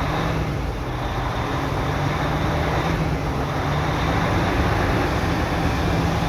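Mercedes Actros truck's diesel engine idling steadily, a constant low hum.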